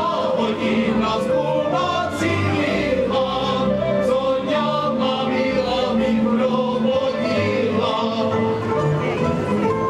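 Cimbalom band playing a folk dance tune, with voices singing along.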